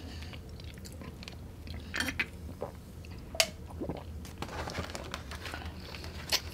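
Quiet eating and handling sounds: a few scattered soft clicks and taps as a drink can and a takeout fries box are handled, with faint mouth sounds, over a low steady hum.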